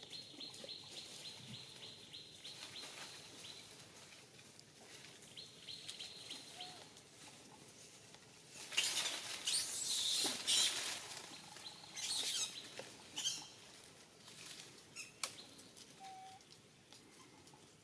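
Rustling, scuffling patter, loudest in a run of bursts from about nine to thirteen seconds in, over a steady high whine that holds through the first three seconds and returns briefly around six seconds.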